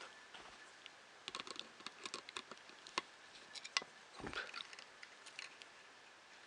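Small plastic printer-kit parts and wiring being handled: a scattered run of light clicks and taps, with a couple of sharper clicks near the middle and a duller knock just after.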